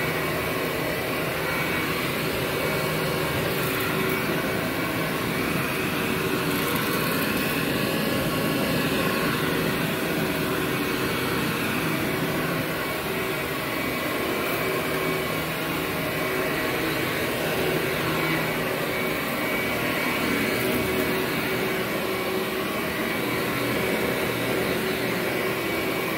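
Workhorse upright vacuum cleaner running steadily as it is pushed back and forth over carpet: a constant motor drone with a steady high tone over it.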